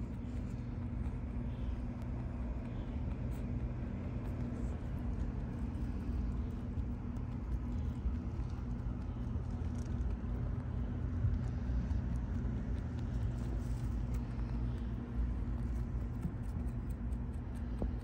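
A steady low mechanical hum runs throughout. Over it, faint crisp clicks of a rabbit chewing greens close to the microphone come more often near the end.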